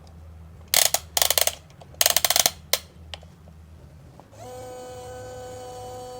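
Toy remote-control crane's plastic gears ratcheting in three quick rattling bursts and a single click, then about four seconds in its small electric motor starts a steady whine.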